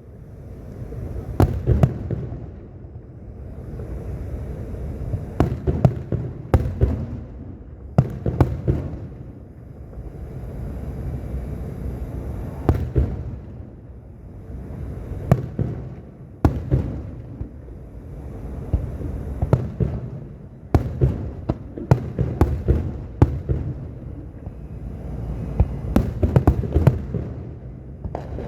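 Aerial fireworks going off: sharp cracks and bangs in irregular clusters every few seconds, over low rumbling booms.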